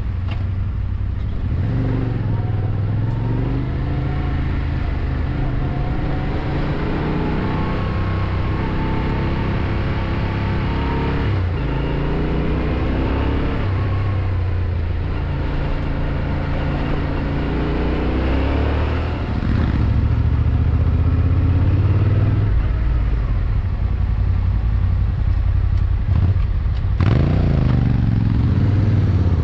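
Yamaha Ténéré 700's parallel-twin engine running under way, its pitch repeatedly rising as it accelerates and dropping back at each gear change.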